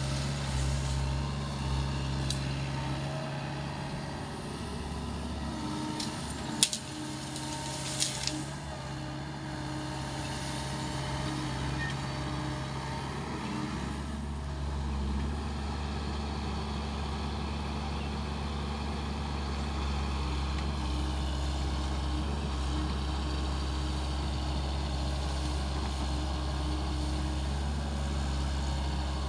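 SANY SY75C mini excavator's diesel engine running steadily under hydraulic load while clearing brush. Its low drone grows stronger about halfway through, and a few sharp cracks come in the first third.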